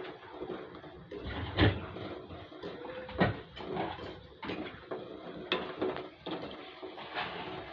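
Gulab jamun dough balls deep-frying in a pan of oil, with a steady sizzle. A metal spoon stirring them scrapes and clinks against the pan again and again.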